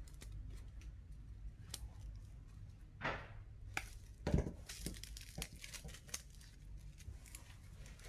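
Paper rustling and small clicks as rolled construction paper is handled and a glue stick is rubbed on it, with a louder rustle about three seconds in and the loudest just after four seconds, over a low steady hum.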